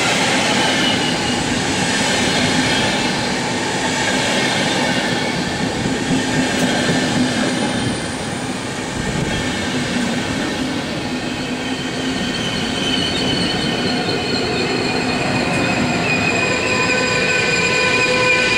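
InterCity passenger coaches rolling past at speed, a steady loud rumble and rush of wheels on rail. Over the last few seconds a set of high steady whining tones grows louder as the electric locomotive pushing at the rear draws level.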